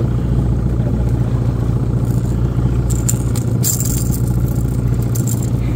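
Outboard motor running steadily at trolling speed, a constant low hum. Between about three and four and a half seconds in, metal clinks and rattles as needle-nose pliers work treble hooks and a spoon lure.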